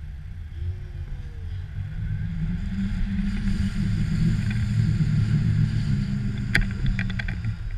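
Wind rushing over the microphone of a pole-mounted camera during a tandem paraglider's low approach to land, growing louder about two seconds in and easing off near the end. A few sharp clicks sound near the end.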